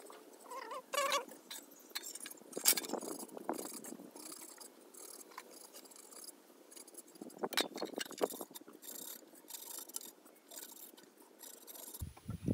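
Toothbrush bristles scrubbing a rusty tin box, an irregular scratchy rubbing with uneven strokes and a brief squeaky pitched sound about a second in.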